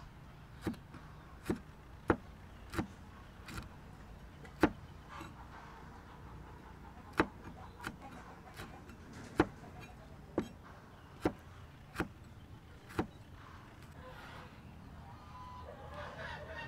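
Kitchen knife slicing red chilies on a wooden chopping board: single sharp knocks of the blade on the board, about one a second, with a short pause partway through.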